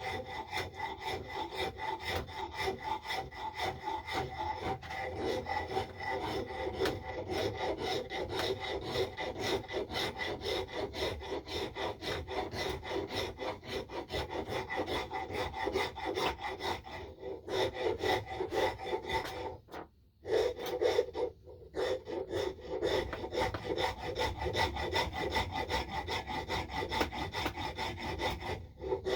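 A hand file rasping back and forth across the wooden knob of an axe handle, shaping it, in quick, steady strokes, with two short pauses about two-thirds of the way through.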